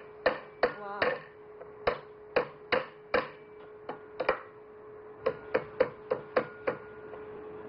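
A Chinese cleaver knocks a cinnamon stick and cardamom pods against a wooden chopping board, cracking the spices. There are about sixteen sharp knocks, roughly two a second, with a pause a little after the middle.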